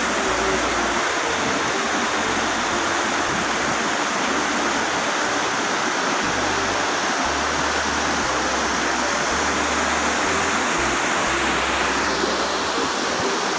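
Shallow mountain stream rushing white over boulders: a steady, loud rush of water that turns a little duller near the end.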